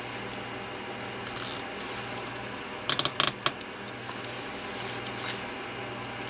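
Small hard clicks and taps from handling the opened plastic handset of a cordless phone during reassembly: a brief scrape, then a quick run of about five sharp clicks near the middle, over a steady low background hum.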